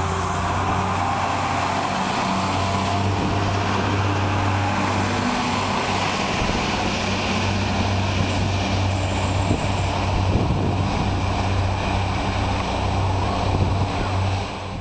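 Diesel train's engine running with a steady, loud low hum.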